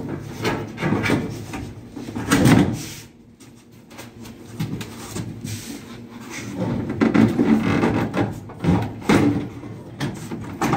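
Knocks, scrapes and rattles of plastic wiring conduit being worked into an aluminium boat's gunnel, then heavier thumps and shuffling as a person climbs over the side of the hull onto the plywood floor. The strokes are irregular, with a loud cluster about two seconds in and a busier run of thumps about two thirds of the way through.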